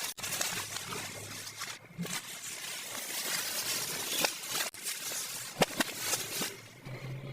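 Small plastic toy pieces and packaging being handled: a steady crinkly rustle with light clicks, a couple of sharper ones past the middle.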